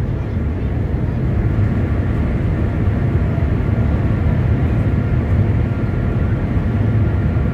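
Steady low rumble inside the cabin of the Shanghai Maglev train running at high speed, with a faint steady whine above it.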